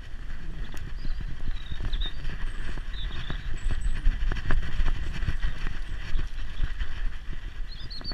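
Dense run of knocks, thumps and rubbing from a GoPro strapped to a Staffordshire bull terrier's back, jostled as the dog moves, over a low rumble. A few short high chirps sound in the background.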